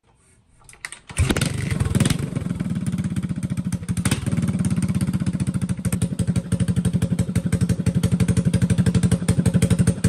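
Suzuki GN400's single-cylinder four-stroke engine running through its header pipe welded to a slip-on muffler. The engine sound comes in abruptly about a second in and settles into a steady, evenly pulsed idle.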